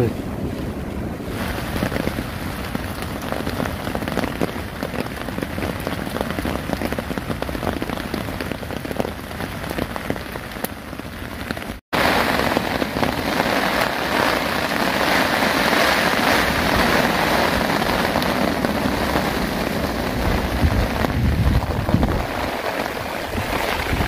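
Heavy rain drumming steadily on a nylon hammock tarp overhead. About halfway through there is a brief break, after which the rain is louder.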